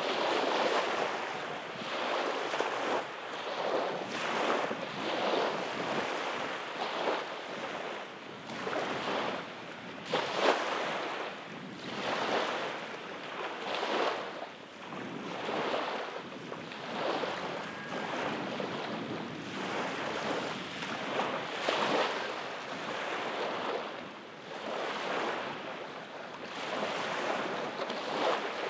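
Small waves lapping and washing up a sandy shore, a soft rush that swells and fades every second or two.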